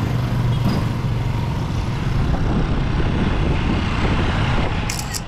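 Steady road noise with a low rumble, heard while on the move along a road.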